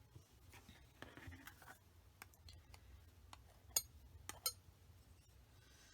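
Palette knife mixing oil paint on a palette: faint soft scraping, then a handful of sharp little clicks over the next couple of seconds.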